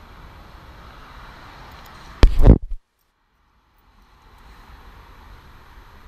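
Steady wind and movement noise on a moving camera's microphone, broken about two seconds in by one very loud half-second thump, then about a second of dead silence before the noise fades back in.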